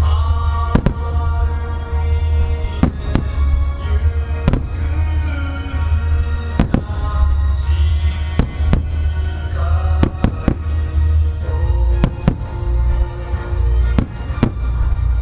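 Aerial firework shells bursting overhead: a dozen or so sharp bangs at irregular intervals, some in quick pairs, with a deep rumble underneath. Music plays throughout.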